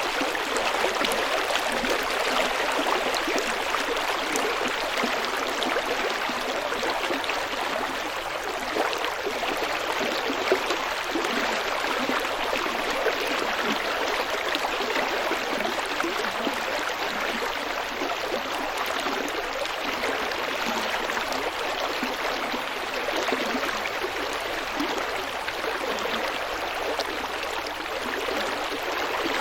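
Small stream flowing and babbling over stones, a steady, even rush of water.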